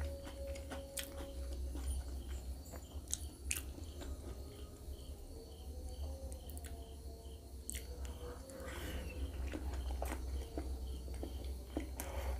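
Close-miked chewing and biting of spicy instant noodles and a boiled egg, with a few sharp clicks of a fork. A steady low hum runs underneath.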